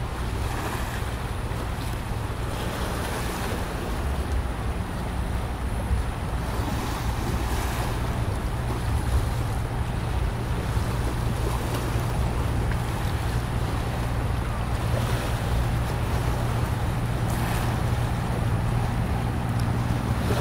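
Heavy wind noise buffeting an unshielded camera microphone, gusting in and out, over a steady low hum that grows slightly louder.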